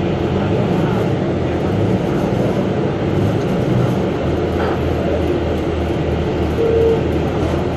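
Steady running noise inside a Higer KLQ6930G city bus under way: a low engine and drivetrain hum with road rumble, pulsing slightly in the second half. A short high-pitched tone sounds briefly near the end.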